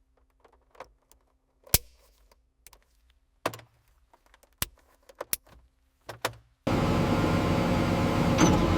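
A few sharp, separate mechanical clicks and knocks over a quiet background, then a loud, steady machine noise cuts in abruptly near the end.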